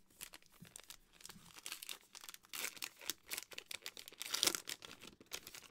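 Wrapper of a 2020 Allen & Ginter trading-card pack being torn open and crinkled by hand: a run of crackling that is busiest and loudest between about two and a half and four and a half seconds in.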